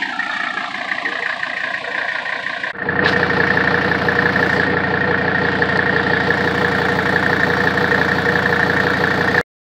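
Mercedes-Benz OM617 five-cylinder turbodiesel idling with a steady diesel clatter. About three seconds in it suddenly gets louder and closer, and it cuts off abruptly just before the end.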